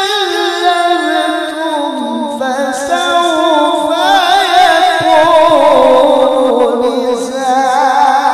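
A male Quran reciter's voice in melodic tilawah, sung through a microphone as one long unbroken phrase. Its notes waver in fine ornaments and step slowly down in pitch.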